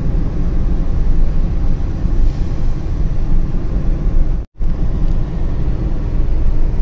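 Car on the road: a steady low rumble of engine and tyres, cutting out for a moment about four and a half seconds in.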